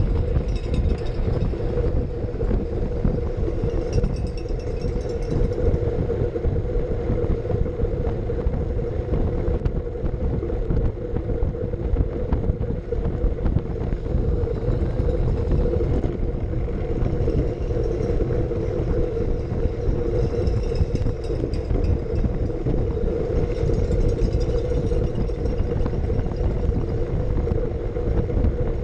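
Wind rushing over the microphone of a camera mounted on a Brompton folding bike ridden at racing speed, with road rumble from its slick tyres on tarmac and a steady hum.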